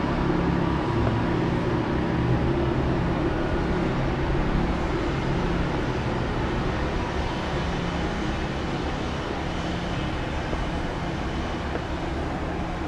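Steady low engine hum over continuous outdoor street noise, fading gradually about halfway through.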